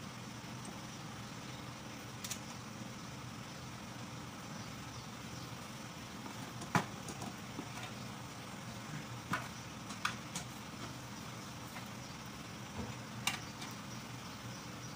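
Scattered sharp metal clinks and taps of hand tools against engine parts, about six in all, the loudest about seven seconds in, over a steady low background hum.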